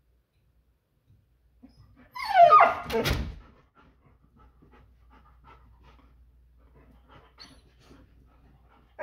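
Labrador retriever giving a short, loud whining cry about two seconds in, with a knock near its end, then panting softly.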